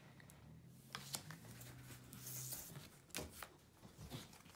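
Faint rustling and light clicks of Pokémon trading cards being handled and flipped through one by one, with a brief sliding hiss in the middle.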